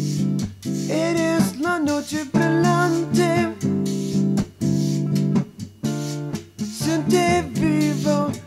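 Background music: acoustic guitar with a singing voice.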